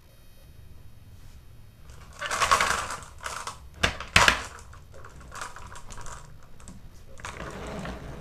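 Marbles rolling and clattering down a wooden marble run, in several bursts of rapid clicks and rattles, with two sharp knocks near the middle.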